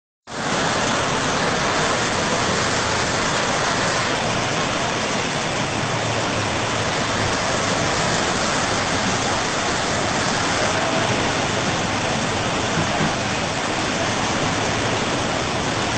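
Muddy flash-flood water rushing past in a steady, unbroken torrent.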